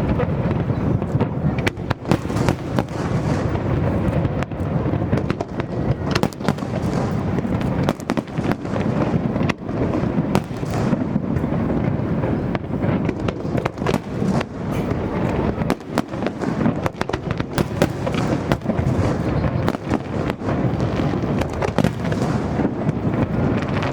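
Aerial fireworks display: a dense, unbroken barrage of overlapping bangs and crackles over a low rumble of booming shells.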